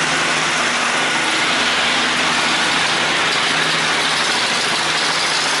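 Boat engine running steadily, a low hum under a constant rush of noise.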